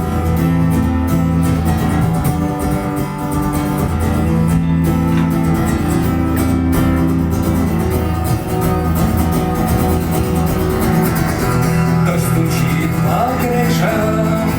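Live band playing a guitar-led instrumental passage, with strummed chords over a steady bass line.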